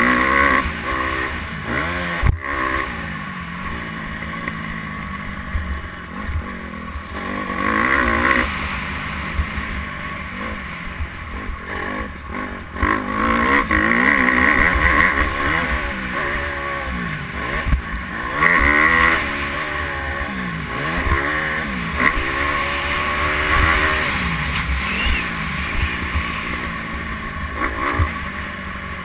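Dirt bike engine being ridden hard, its pitch climbing and dropping over and over as the throttle is opened and shut, with wind buffeting a helmet-mounted camera. A short sharp knock about two seconds in.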